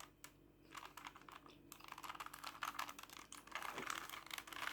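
Plastic Rubik's cube being turned by hand: a run of faint clicks and rattles as its layers snap round, sparse at first and busier from about two seconds in.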